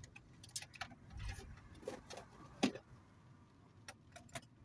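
Irregular light clicks and taps inside a moving car as a phone charging cable is handled and plugged in, with one louder knock about two and a half seconds in, over a low road rumble.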